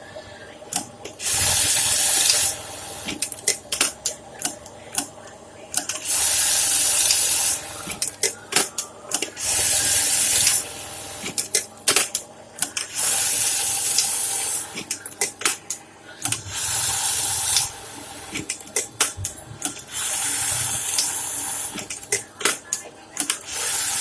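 Brother industrial buttonhole sewing machine running in short bursts of one to two seconds, about seven times, with sharp clicks between the runs.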